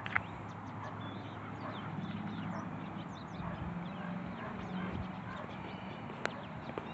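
Outdoor street ambience: many small bird chirps over a low steady hum, with a sharp click near the start and another near the end.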